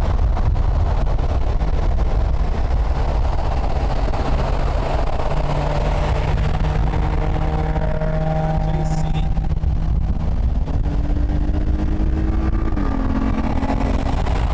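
Car engine and road noise heard from inside the cabin at speed. The engine note rises about ten seconds in, holds, then drops back near the end.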